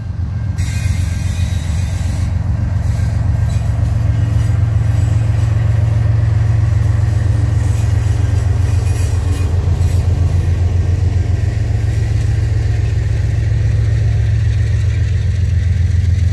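An engine running steadily: a loud, low, even rumble with no breaks.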